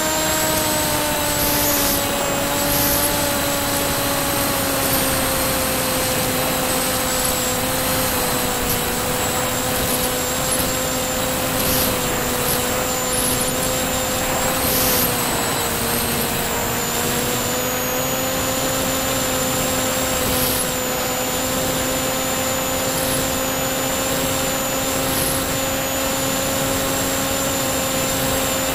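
Propeller and motor of a C1 Chaser FPV plane in flight, heard from its onboard camera: a steady droning hum with a thin high whine over a constant rush of wind. The pitch sags a little about halfway through, then settles back.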